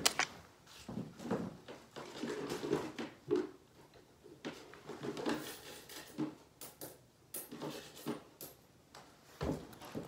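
Scattered soft knocks, clicks and rustles of someone handling and moving objects, with short pauses in between.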